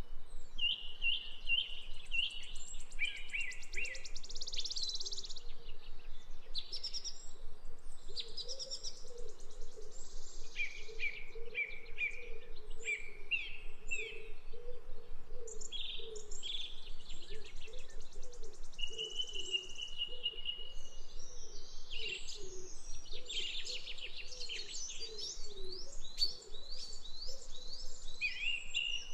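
Several songbirds singing and calling, with varied high chirps, rapid trills and a held whistled note, one phrase after another. A fainter, lower call repeats steadily underneath.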